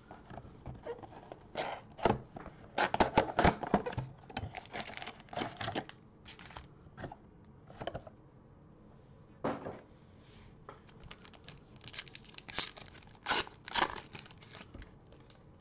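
A trading-card mega box being torn open by gloved hands: irregular ripping of cardboard and rustling, crinkling packaging, loudest in two stretches. Near the end a foil card pack is ripped open.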